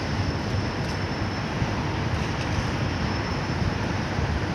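Wind buffeting the microphone over open-air city ambience: a steady, uneven low rumble with no single event standing out.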